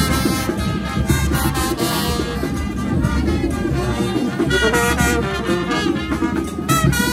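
Marching brass band playing in the street, trumpets and trombones carrying the tune over a sousaphone bass line and drums.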